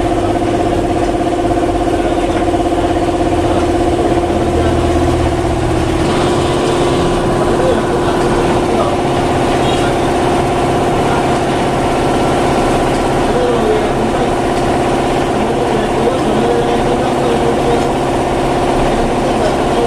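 A steady mechanical hum from a running motor or engine, holding one pitch throughout and shifting slightly about six seconds in.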